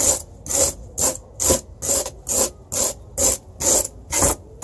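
Kitchen knife slashing and scraping a styrofoam block, about two even strokes a second, roughing the foam into a rock-like texture.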